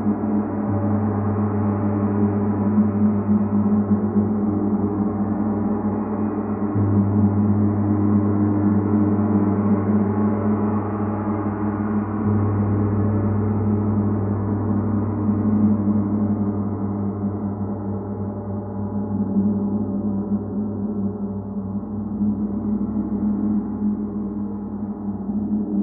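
Large hanging gong played continuously with a mallet, a dense wash of many overlapping ringing tones that swells toward the middle and slowly eases off.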